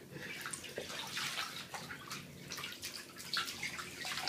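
Shallow bathwater splashing in a bathtub as a hand moves through it, in a run of small, irregular splashes and drips.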